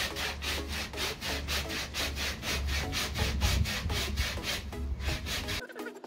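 A hand tool worked rapidly back and forth on a wooden board, about five rasping strokes a second. Near the end it cuts off abruptly and background music takes over.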